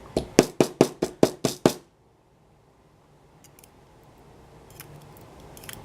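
Rapid run of about eight sharp knocks, about five a second, as a lock is tapped against a hard surface to shake a copper spring out of its pin chamber, followed by a few faint small clicks.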